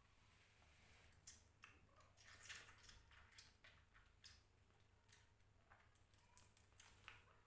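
Faint wet smacking and clicking of kittens suckling milk from a feeding bottle's nipple, in irregular small bursts.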